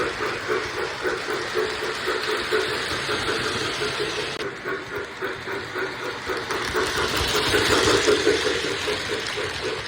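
O gauge model of a Union Pacific 2-8-0 steam locomotive running on its track, with a steady chuffing of about three beats a second over the rumble of the wheels and cars. It grows louder a little before the end, then eases off.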